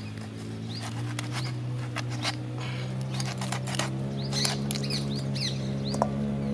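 Raw chicken being cut into small pieces by hand on a blade, giving scattered sharp clicks and snips. Small birds chirp briefly high above a steady low hum.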